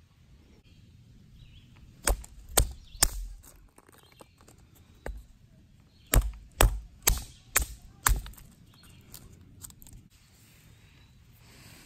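Dry sticks snapping by hand, a run of sharp cracks: three within about a second, a single one, then five in quick succession.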